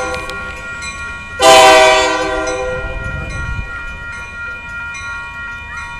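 Union Pacific SD70M diesel locomotive sounding its air horn as it passes close by. One blast cuts off as the sound begins, and a second, louder blast starts about a second and a half in and lasts about two seconds before fading. Under the horn is the low rumble of the locomotive going by.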